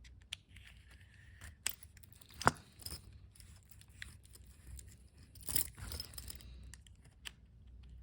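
Small sharp clicks and scratchy scraping of a watch back removal tool twisting a screw-in watch case back onto the case, with one loud click about two and a half seconds in and a longer scrape a little past halfway.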